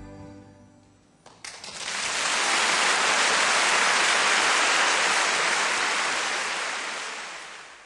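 Dense audience applause that swells up after the piano music dies away and fades out again near the end.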